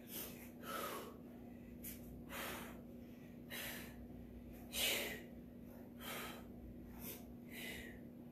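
A woman breathing hard while doing push-ups: short, sharp breaths through nose and mouth, roughly one a second, the loudest about halfway through.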